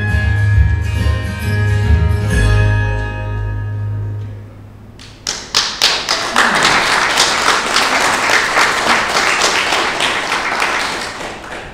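Instrumental music ends on held final notes that die away about four seconds in. Then a group of people applauds for about six seconds, starting with a few scattered claps.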